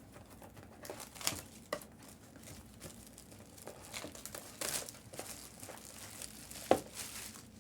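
Packaging crinkling and tearing in hands as a mystery autographed-baseball box is unwrapped and opened, in irregular rustles, with one sharp tap or knock near the end.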